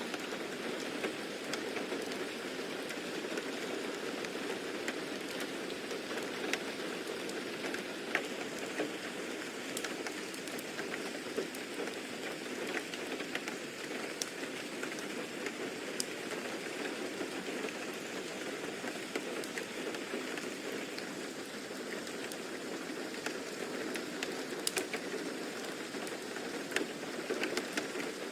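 Steady rain falling: an even, continuous hiss with scattered sharp drop taps.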